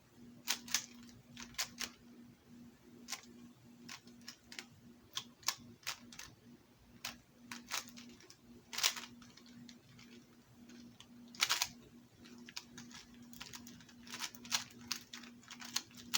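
Rubik's cube being turned by hand: irregular plastic clicks and clacks as the layers rotate, some in quick runs with pauses between, and a couple of longer, louder scrapes. A faint steady hum runs underneath.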